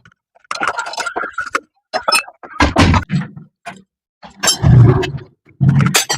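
Metal hand tools and engine parts clinking and clanking irregularly as a spanner works bolts loose on a motorcycle engine.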